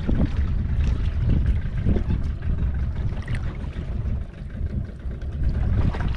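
Low, uneven rumble of wind and sea noise aboard a small fishing boat at sea.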